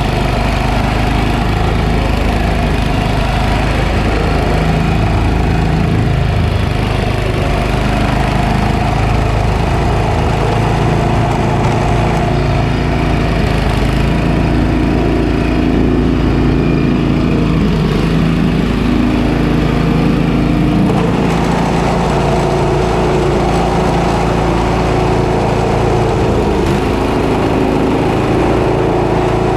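Snowblower's small gasoline engine running steadily and loudly, its note shifting a little up and down partway through.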